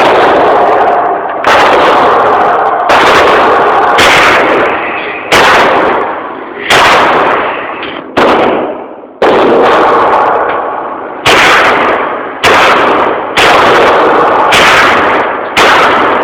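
Firearm shots fired one at a time, about a dozen, one every second or so, each very loud and followed by a long echoing decay.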